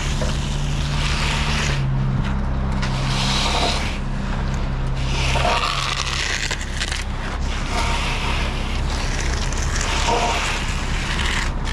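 A hand float scraping over wet concrete in repeated strokes as a fresh sidewalk slab is floated along its edge. A steady engine hum runs underneath and drops away about halfway through.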